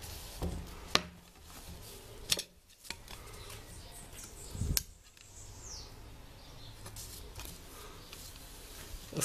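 Handling noise from a plastic protractor and hand tools being moved about: a few light clicks and a louder dull knock a little under five seconds in, over a low steady hum.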